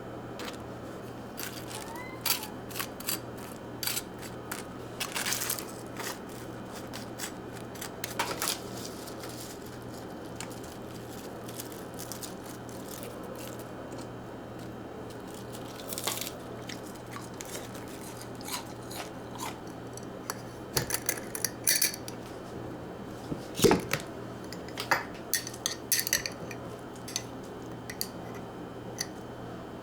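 Kitchen handling sounds: scattered clicks, taps and light clinks of dishes and utensils, busiest past the middle, over a steady low hum.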